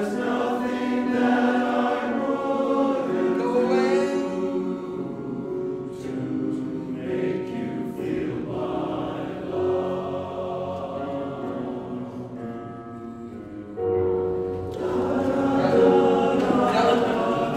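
Men's chorus of tenor and bass voices singing in parts, holding sustained chords. The singing grows quieter, then comes back in louder about three-quarters of the way through.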